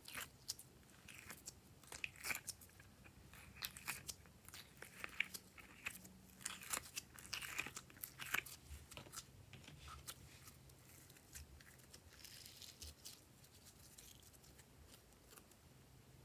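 Glossy slime being mixed by hand, making faint, irregular sticky clicks and crackles. The clicks are busiest in the first half and thin out near the end.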